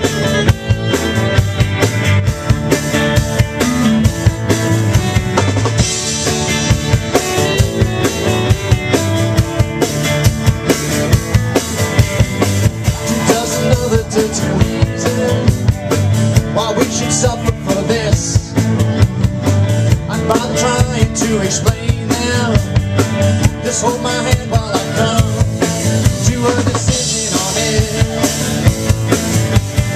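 Live rock band playing: a drum kit keeps a steady beat under electric guitars and keyboard.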